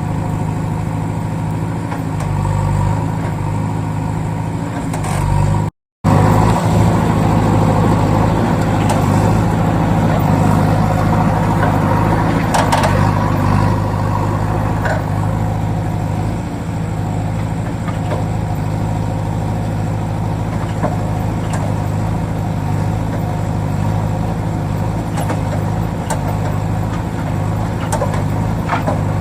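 A truck engine running steadily with a low, even hum. About six seconds in the sound cuts out completely for a moment, then carries on.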